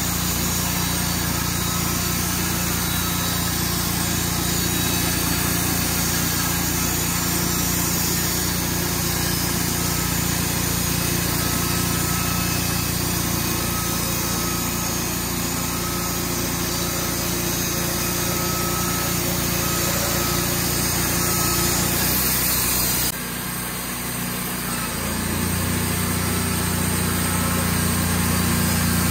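A small engine running steadily at constant speed. About 23 seconds in, the sound changes abruptly and drops for a moment, then the engine sound picks back up.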